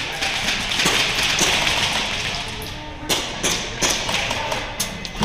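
Background music under play noise: a rushing hiss for the first few seconds, then a quick series of sharp clicks and knocks in the second half.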